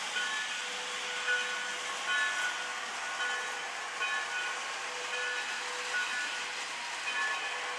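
Lionel toy train running on its track: a steady hiss, with short tones recurring about once a second.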